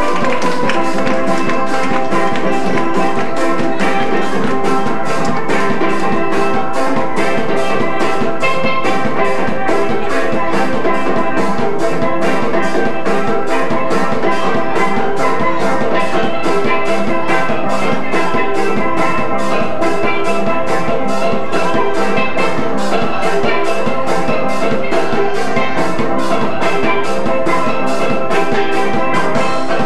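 Music with a melody over a steady drum beat.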